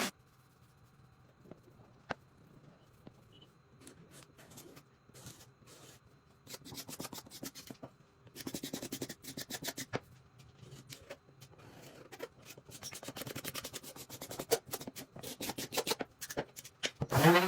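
Hand rubbing and scraping strokes on wood. They are sparse and faint at first, then come in quick repeated runs from about six seconds in.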